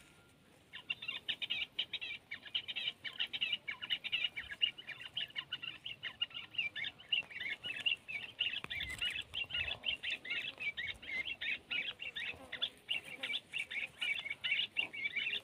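Quail calling: a fast, unbroken run of short, high chirping notes.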